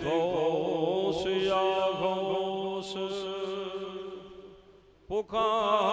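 A man chanting a Punjabi naat, holding one long wavering melismatic note that fades out about four and a half seconds in. A new sung phrase begins near the end.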